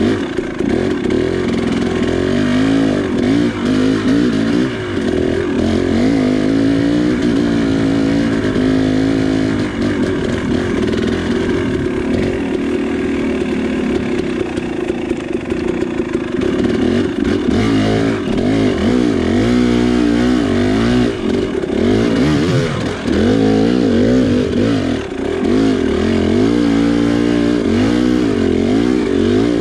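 KTM 300 XC two-stroke dirt bike engine pulling at low speed on a steep trail climb, its pitch rising and falling over and over as the throttle is worked.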